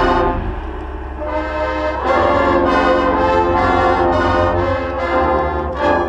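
Marching band brass playing loud, held chords over steady low bass notes. The sound eases off about half a second in and swells back up about two seconds in, with a sharp accent near the end.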